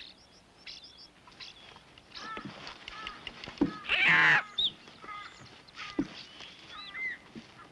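Birds chirping and whistling in short calls, with one loud harsh parrot squawk about four seconds in.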